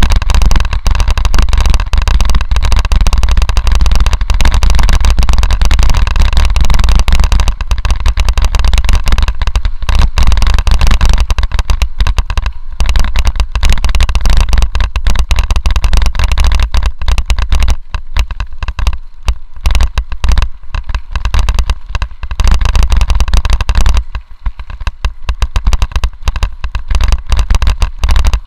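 Mountain bike rolling fast down a gravel track: wind buffeting the camera microphone as a deep rumble, over a dense crunching rattle of tyres and bike on loose gravel. The noise eases twice for a moment in the second half.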